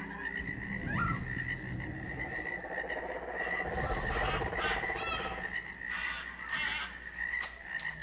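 Layered jungle ambience sound effect: a low, rippling, frog-like croaking chorus over a steady high tone, with a few short chirps near the middle.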